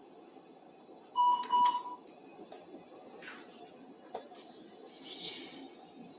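Electrosurgical generator giving its steady activation beep for just under a second, about a second in, which signals that the cautery is firing on bleeding tissue. Near the end comes a short hiss from a surgical suction tip drawing off blood.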